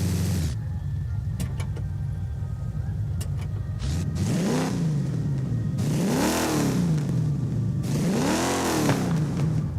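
1968 Dodge Dart HEMI Super Stock's 426 Hemi V8 idling, then revved three times, each rev rising and falling back to idle in about a second.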